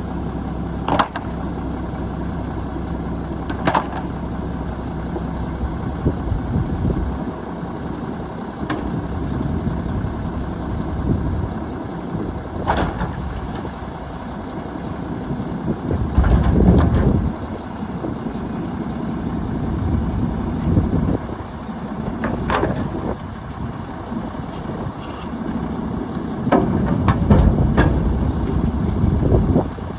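Mack LE garbage truck's diesel engine running, swelling louder about halfway through and again near the end. Several sharp clanks and bangs come over the top of it.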